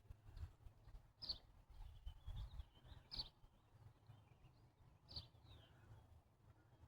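Faint outdoor ambience: three short high bird chirps about two seconds apart, the last followed by a brief falling note, over a low uneven rumble.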